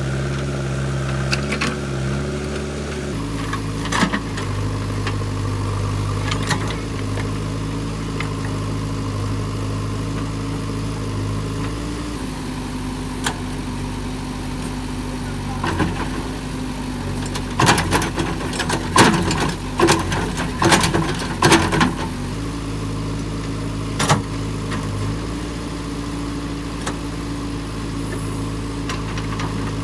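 JCB 3DX backhoe loader's diesel engine running steadily, its engine note changing a few times. A cluster of sharp metallic knocks and clanks comes about two-thirds of the way through.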